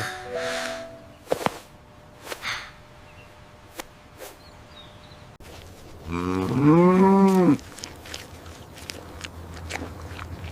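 A cow mooing once, about six seconds in: one long low call lasting about a second and a half, rising and then falling in pitch. A few short musical notes and light clicks come before it.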